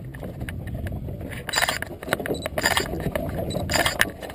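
Steady low rumble of a fishing boat at sea, broken by three short hissy bursts about a second apart as a hooked cod is worked at the surface beside the hull.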